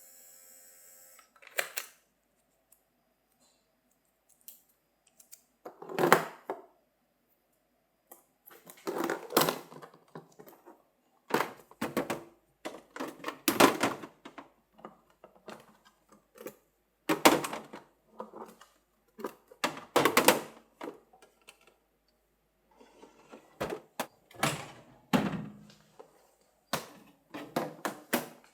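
Household objects being handled and set down in a kitchen: a series of separate clunks, clicks and rustles every second or few, with quiet gaps between.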